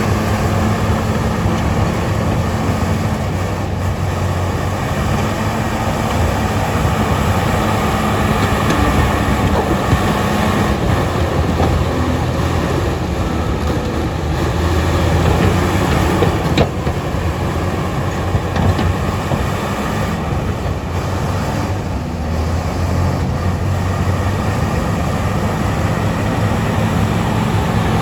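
Crawler bulldozer's diesel engine working steadily under load, with the rumble and clatter of the machine spreading stone. There is one sharp knock about two-thirds of the way through.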